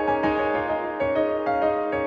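Gentle instrumental piano music, a run of short notes struck several times a second over sustained chords.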